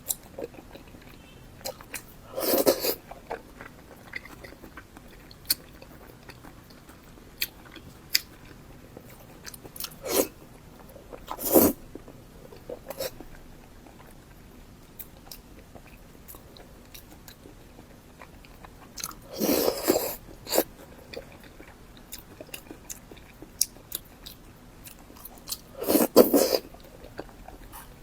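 Close-miked mouth sounds of a person eating: small wet chewing clicks throughout, with four louder bites spaced roughly 8 seconds apart.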